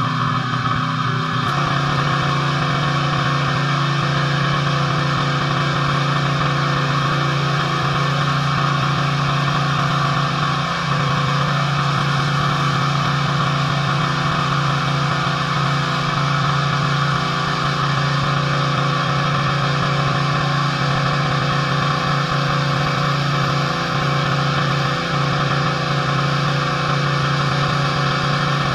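Pressure washer running steadily: a constant engine hum under the hiss of high-pressure water spray.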